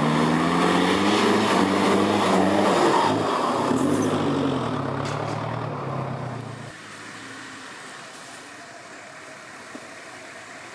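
Off-road 4x4's engine revving up and down. It stops abruptly about two-thirds of the way through, leaving only a low steady hiss.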